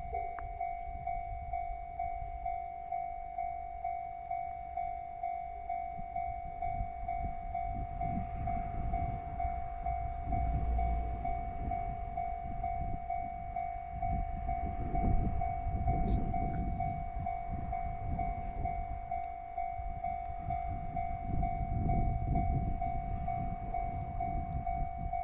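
Japanese railway level crossing's warning bell ringing steadily, about one and a half strokes a second, while a train passes with a low rumble that builds about a third of the way in and swells twice. There is a single sharp click partway through.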